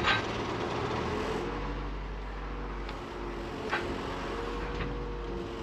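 Komatsu PC56 mini excavator's turbocharged diesel engine running steadily, with a faint whine that rises and falls in pitch as the machine is worked and a couple of light clicks.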